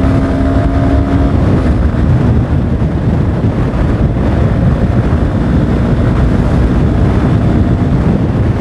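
Honda Hornet motorcycle running hard at highway speed, around 100–110 km/h, with wind rushing over the microphone: a loud, steady, dense rumble and whoosh.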